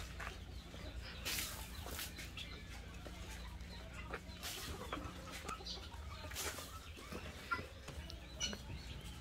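Chickens clucking softly now and then, with a few brief rustling noises.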